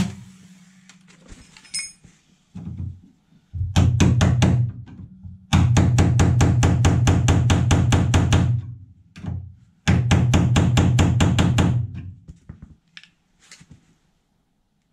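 Hammer tapping along a car sill seam to split drilled-out spot welds apart: quick runs of metal-on-metal strikes, about six a second, in three bursts with short pauses between.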